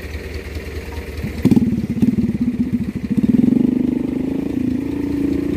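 Motorcycle engine running low, then opening up about a second and a half in and pulling hard, its note climbing slightly as it accelerates.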